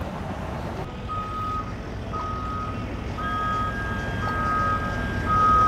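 A vehicle's back-up alarm beeping about once a second, each beep a single steady tone, over a low engine rumble.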